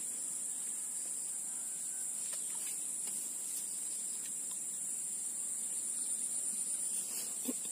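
Steady high-pitched drone of insects, with a few faint ticks.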